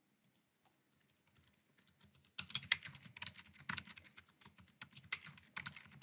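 Computer keyboard typing: quick runs of keystrokes starting about two seconds in, with a brief pause near the middle.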